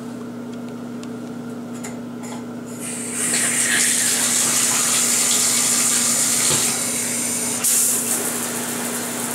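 Bathtub faucet turned on about three seconds in: water running from the spout and splashing into an empty tub, a steady hiss that shifts and grows brighter near the end.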